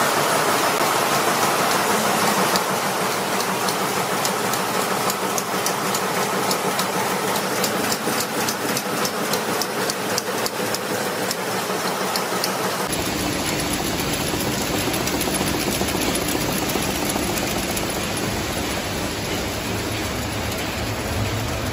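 Screw-making machinery running in a factory: cold heading machines working with a rapid, evenly spaced clatter of strokes. About 13 seconds in the sound changes abruptly to a steadier machine noise with more low rumble, from the next stage of screw production.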